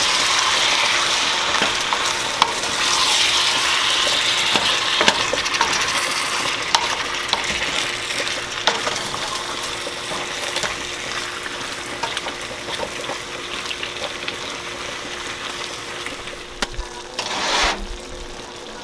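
Chunks of beef sizzling as they brown in a stainless steel skillet, stirred and scraped with a wooden spoon, with scattered light knocks of the spoon on the pan. The sizzle grows gradually quieter.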